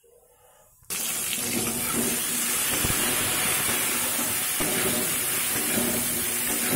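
Indian jujubes (kul) dropped into hot mustard oil in a steel kadai, sizzling steadily; the sizzle starts suddenly about a second in.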